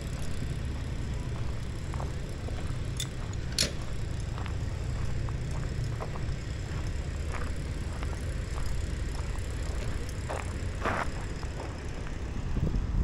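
Steady low rumble of wind and motion on a moving camera's microphone, with a few light clicks and ticks scattered through it.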